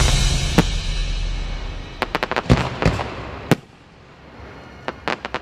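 Aerial firework shells bursting: the rumble of a big burst dies away over the first few seconds. Then come sharp cracks, a quick run of about half a dozen two to three seconds in and a few more near the end.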